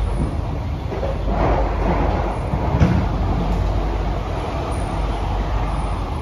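Interior of a Kawasaki–CRRC Sifang C151B metro train car in motion: a steady low rumble from the running train, with one sharp knock about three seconds in.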